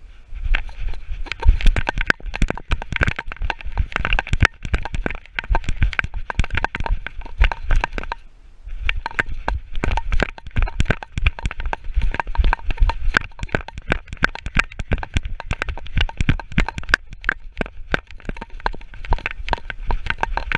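Action camera strapped to a running dog's harness, rattling and knocking with every stride: a fast, irregular stream of clicks and low thuds from the mount and the dog's footfalls, with a short pause about eight seconds in.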